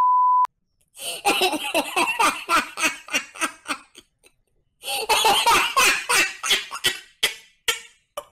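A steady beep tone cuts off about half a second in. Then a person laughs in two quick, high-pitched runs of giggling, with a pause of about a second between them.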